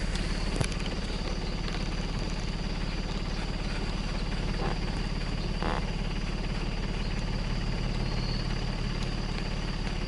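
Vehicle engine idling steadily, a low even hum, with a constant faint high-pitched tone above it.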